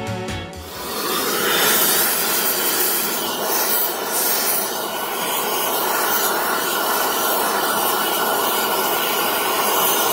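Gas brazing torch flame burning with a steady hiss as a joint on a motorcycle cylinder head is brazed. The tail of a music track cuts off in the first half-second.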